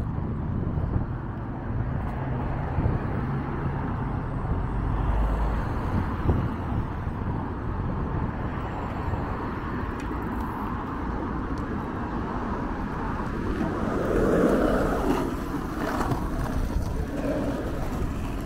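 City street ambience: road traffic passing, with a steady low rumble and a louder swell about fourteen seconds in.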